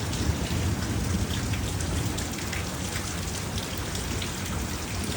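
Rain falling steadily, with scattered drops tapping and a continuous low rumble underneath.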